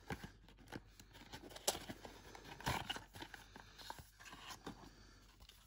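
Cardboard box insert and paper leaflets being handled: scattered rustles, scrapes and light taps as the leaflets are slid out, with a sharp tap about a second and a half in and a louder rustle near the three-second mark.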